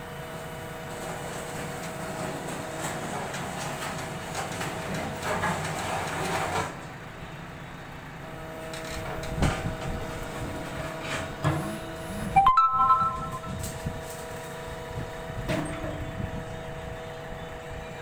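JCB backhoe loader's diesel engine running with a steady whine as the backhoe arm lifts and swings a heavy steel bucket hung from a chain. Several metal clanks and scrapes from the bucket and chain, the loudest a ringing clank about twelve and a half seconds in.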